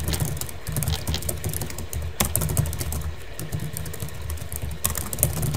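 Typing on a computer keyboard: a quick, irregular run of key clicks as a sentence is typed, over a low hum.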